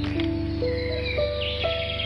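Film score music: a melody of held notes stepping upward over a steady low drone.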